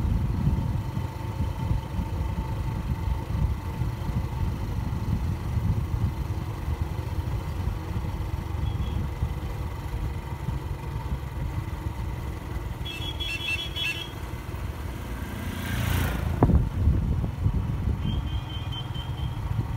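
Motorcycle running steadily along a road, its engine and wind noise making a constant low rumble. About three-quarters of the way through there is a brief louder rush of noise, and a few short high chirps sound faintly twice.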